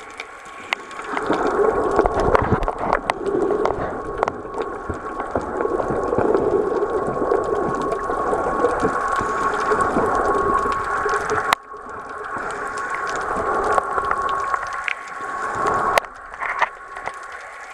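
Underwater noise picked up by a submerged camera: a steady rushing hiss with a constant high hum running through it and scattered sharp clicks. It drops out abruptly for a moment about two-thirds of the way through, then builds back up.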